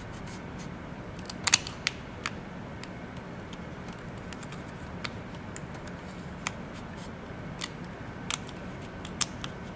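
Dissection scissors snipping through the carapace of a narrow-clawed crayfish: a run of sharp, irregular clicks as the blades cut the shell, loudest in a quick pair about a second and a half in.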